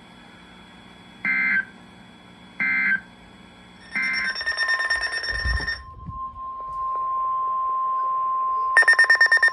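Emergency Alert System end-of-message data bursts: three short warbling two-tone bursts about a second and a half apart. After them comes a brief buzzy burst, then the steady single-pitch NOAA Weather Radio 1050 Hz alert tone. Near the end a loud, rapidly pulsing beeping tone sets in over it.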